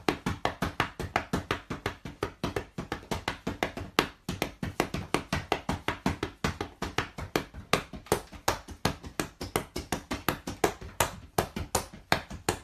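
A fast, steady run of sharp taps or clicks, about seven a second.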